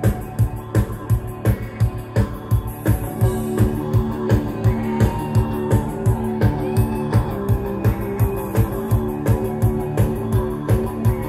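Live rock band playing, with bass guitar, electric guitar and drums over a fast, steady kick-drum beat of about two and a half beats a second. Held chords come in about three seconds in.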